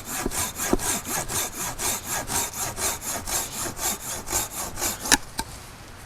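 Hand saw cutting through a piece of firewood, rasping back and forth at about three strokes a second. The sawing stops about five seconds in with a sharp crack.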